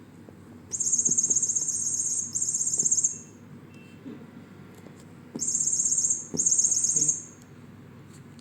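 Electronic cat toy chirping: two bursts of high, rapidly warbling bird-like twitter, a pause of about two seconds, then two more bursts.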